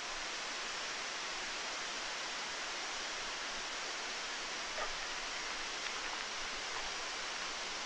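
A tall waterfall's falling water, heard from near its foot: a steady, even rush.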